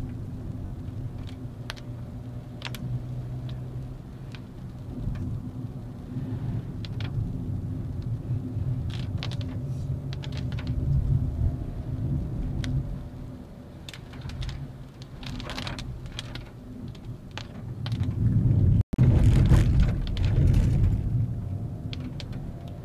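Volkswagen Vento's 1.2 TSI engine and tyres driving along a winding road: a steady engine hum and road rumble with scattered light clicks and knocks. About eighteen seconds in, the noise swells to a louder rush for a few seconds, cut by an instant of silence.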